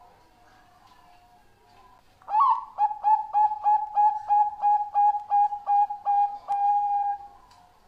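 Zebra dove (perkutut bangkok) cooing. It opens with a rising note, then gives a quick run of about fifteen short coos, some three a second, and ends on a longer held coo.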